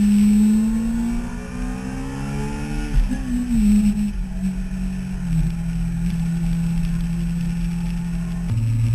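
Yamaha YZF-R6 inline-four engine running under way: the note rises as the bike accelerates over the first three seconds, drops abruptly at a gear change, then holds steady. Near the end a louder, lower engine note comes in.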